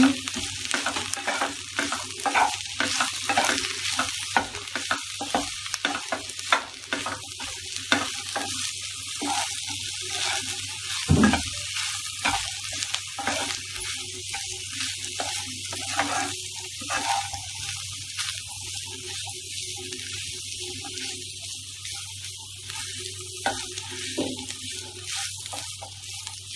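Wooden spatula stirring and scraping soya chunks, capsicum and onion with spices in a hot nonstick pan, over a steady sizzling hiss. One louder knock of the spatula about eleven seconds in, and the scraping thins out in the second half.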